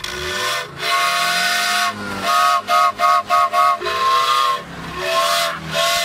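Old Russian fire truck's siren horn sounding in pitched blasts: a long note, then a quick run of about five short toots, then more notes switching between a lower and a higher pitch.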